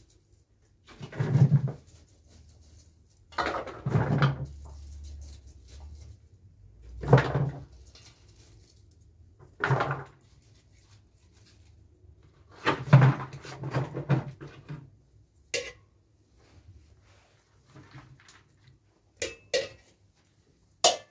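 Handfuls of chopped pickling vegetables (cauliflower, carrot, cucumber) dropped and packed into a large plastic jug, a hollow rattling thud about every three seconds, then a few short sharp clicks near the end.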